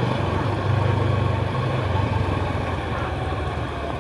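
Macbor Montana XR5 510 motorcycle engine running steadily under load on an uphill climb, swelling slightly about a second in.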